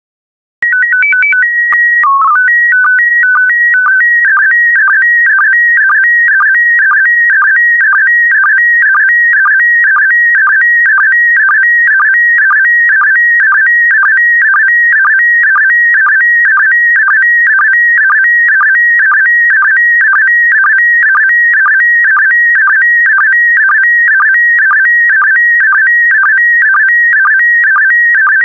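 Slow-scan television (SSTV) signal in PD120 mode: after a short burst of beeping tones that jump between pitches and the mode-identifying header, the image transmission settles into a steady, rapidly warbling electronic tone with a pulse about twice a second as each pair of scan lines is sent.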